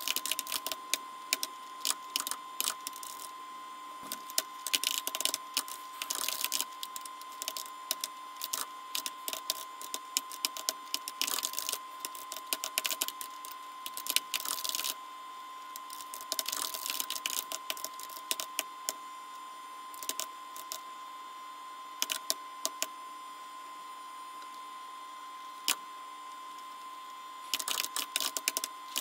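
Computer keyboard being typed on: bursts of rapid clicking keystrokes with short pauses between them and a longer pause in the last third, over a steady faint tone.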